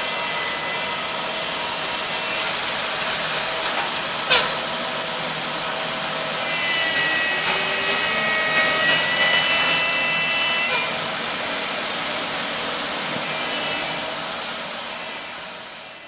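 Diesel engines of heavy earthmoving machinery, a dump truck and a vibratory soil roller, running steadily. A sharp click comes about four seconds in, a high whine sounds for a few seconds in the middle, and the machine noise fades out near the end.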